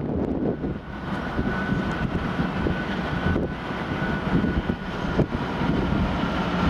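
Freightliner Class 66 diesel locomotive's 12-cylinder two-stroke EMD engine running as it approaches hauling hopper wagons: a steady deep rumble, with a steady high whine joining about a second in.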